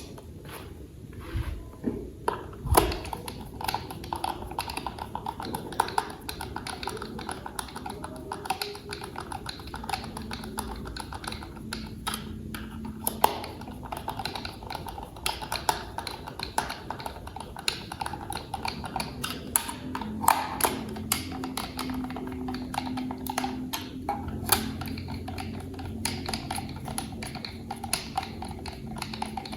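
Small hard-plastic toy parts clicking and tapping as they are handled and snapped together, a rapid, irregular run of light clicks.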